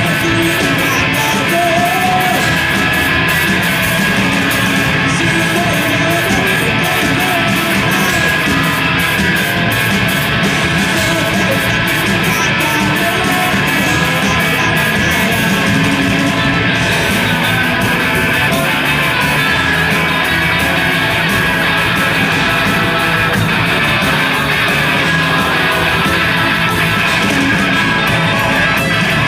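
Live rock band playing a loud, continuous song on electric guitars and a drum kit.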